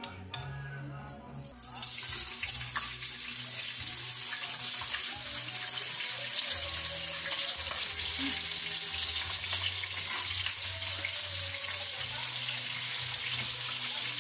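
Bacon strips sizzling in hot oil in a wok, a steady hiss that starts abruptly about two seconds in.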